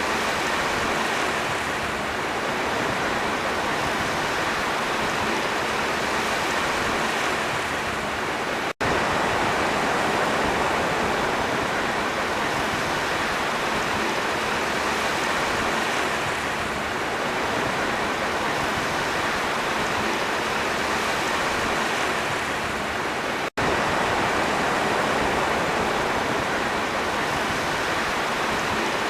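Sea waves and surf giving a steady, continuous rush of water. The sound cuts out for an instant twice, about nine and twenty-three seconds in.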